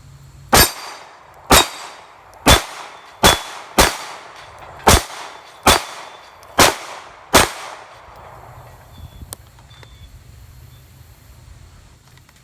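Nine pistol shots from a Glock 23 Gen 4 firing 9mm through a Lone Wolf conversion barrel, at an uneven pace of about one a second, each followed by a short ringing echo. A few faint clicks come about a second and a half after the last shot.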